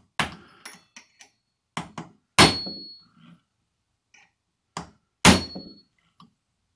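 Hammer striking a steel chisel set against a biscuit joiner's blade nut to jar the nut loose. A string of separate taps, with two hard blows about two and a half and five seconds in, each with a short metallic ring.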